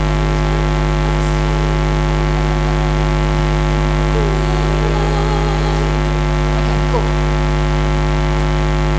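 Loud, steady electrical mains hum with a buzzy edge, unchanging throughout.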